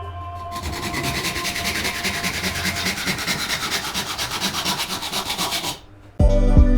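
Hand sanding of a wooden knife handle: rough, even rubbing strokes, about four or five a second, which stop shortly before the end.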